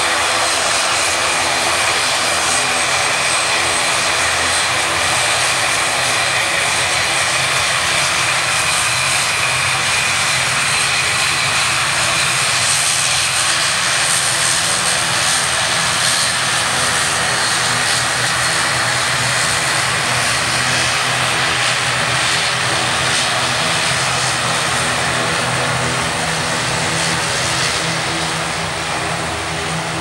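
An ATR 72-500's twin turboprop engines running as it taxis along the runway: a steady propeller drone with a high turbine whine, fading a little near the end as the aircraft moves away.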